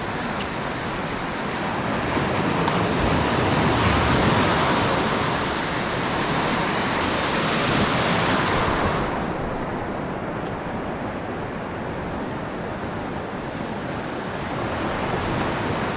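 Ocean surf breaking and washing around wading legs, a steady loud rush of water, strongest in the first half. From about nine seconds in the rush turns duller, losing its hiss, until it brightens again near the end.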